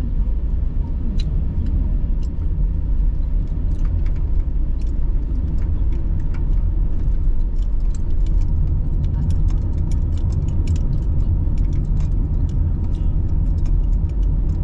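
Car driving on an ordinary road, heard from inside the cabin: a steady low rumble of engine and tyres, with many small light ticks and rattles scattered over it, more of them in the second half.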